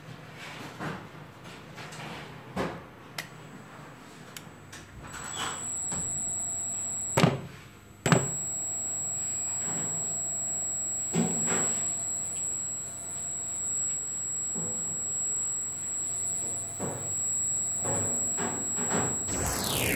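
Yaskawa SGMGH-09ACA6S AC servo motor powered up on a test bench, giving a steady high-pitched whine. The whine breaks off between two sharp clicks a little after a third of the way in, then resumes, with scattered lighter clicks of the test-box switches.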